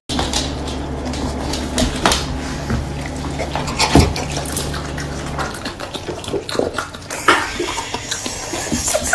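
A Rottweiler licking at a lemon wedge, with wet licking and lip-smacking sounds and many small clicks, over a steady low hum that stops about five and a half seconds in.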